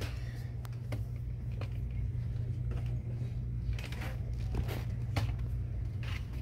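Steady low hum of a shop's background, with scattered light clicks and rustles.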